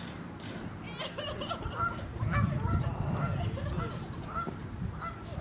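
Mallard ducks quacking on a pond, many short calls scattered throughout, with a low rumble about two seconds in.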